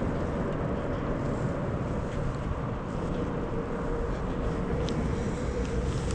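Steady low background rumble and hiss with a faint steady hum.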